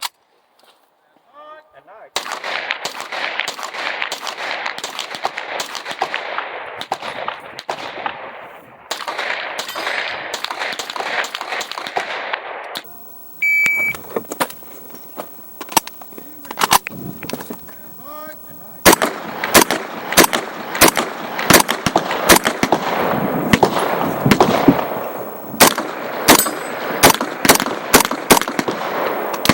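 Pistol-caliber carbine firing many shots in quick strings, densest in the second half, over a steady rushing noise.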